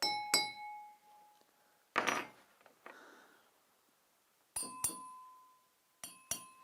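Drinking glasses struck in quick pairs, three times over, each tap ringing out with a clear tone that fades over about a second. A short dull knock comes about two seconds in.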